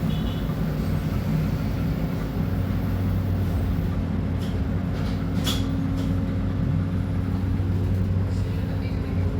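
Scania K310UB city bus engine running steadily with a deep hum. A few brief clicks come around the middle, and near the end a rising whine begins as the engine picks up speed.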